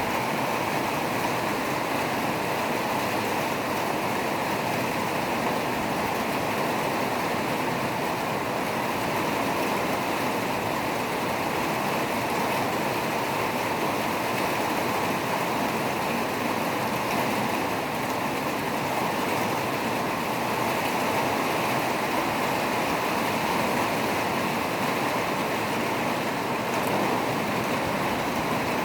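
Steady heavy rain: an even, unbroken rushing noise that holds at one level throughout.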